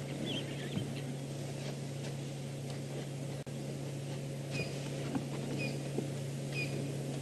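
Quiet bush ambience over a steady low hum, with a faint wavering high call near the start; from about halfway a small bird gives a short high chirp about once a second.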